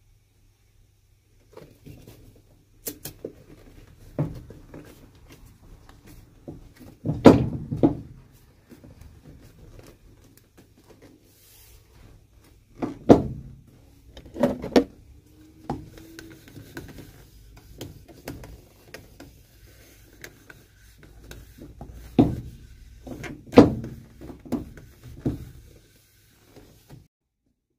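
Scattered knocks and thumps of a cobbler's hammer on a leather sole as a second sole is laid on and beaten down, with the loudest blows about seven, thirteen and twenty-three seconds in.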